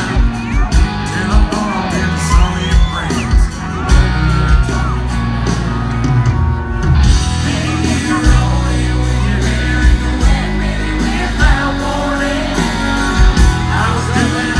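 Live country band playing with a male lead singer over a steady drum beat, heard from within the audience. The band thins out for a few seconds midway, then comes back in full.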